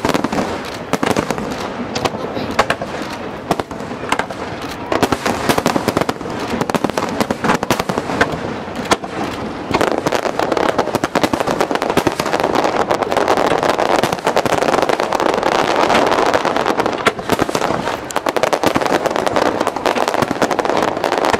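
Aerial fireworks shells bursting one after another with sharp bangs and crackle, growing into a dense, continuous barrage about halfway through.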